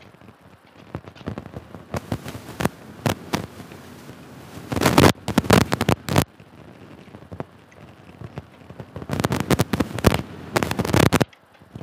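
Irregular crackling and popping of rain and wind striking a motorcycle rider's camera microphone, with dense bursts about five seconds in and again near the end.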